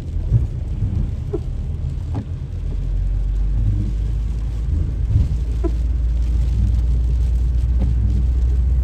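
A car driving in heavy rain, heard from inside the cabin: a steady low rumble of engine and road noise that grows louder about two and a half seconds in, with a few faint knocks.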